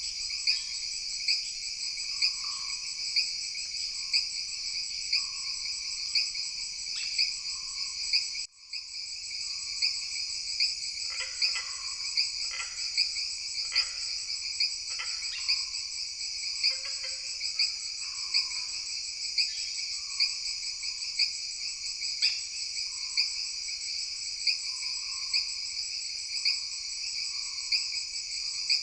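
Jungle night chorus of insects: a steady, pulsing high-pitched trilling, with sharp chirps about once a second. Frogs call in the lower range, with a run of croaks a little after the middle. The whole chorus cuts out for a moment about eight seconds in.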